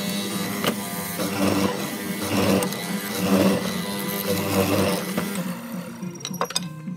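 Benchtop hollow-chisel mortiser running, its square chisel and auger plunged again and again into the wood with a cutting swell about once a second over a steady motor hum. The cutting stops about five seconds in, followed by a few sharp clicks.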